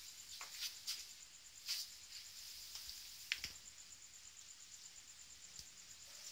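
Faint background sound: a steady, evenly pulsing high chirp, with a few scattered clicks and short falling squeaks.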